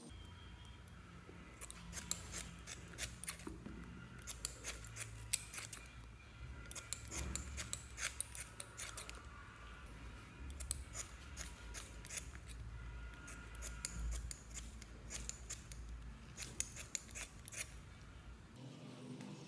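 Slime being mixed and squished by hand, giving dense, irregular runs of sticky clicks and crackles.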